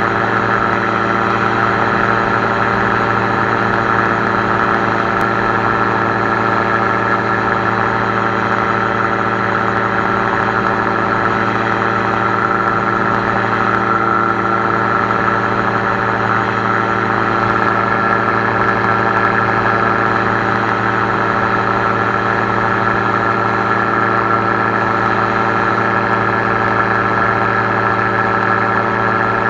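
Air Command gyroplane's pusher engine and propeller running steadily at cruise power in flight, a constant drone with no change in pitch or level.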